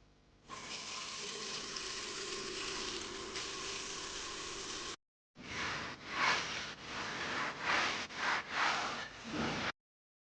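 A steady hiss that cuts off abruptly, then after a brief break a second stretch of hissing noise that swells and fades in quick surges before stopping suddenly.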